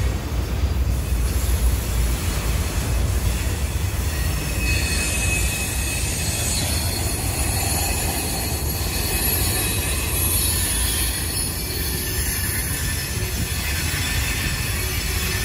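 Freight train cars rolling past at close range: a steady low rumble of steel wheels on the rails, joined about four or five seconds in by a thin, high wheel squeal that carries on.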